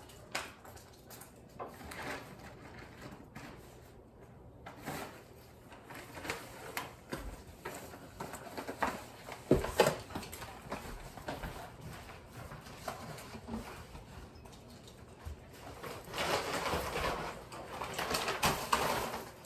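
Footsteps and handling noises of a person walking in through a doorway with a reusable shopping tote: scattered light knocks, one sharp knock about ten seconds in, and a burst of bag rustling and movement near the end.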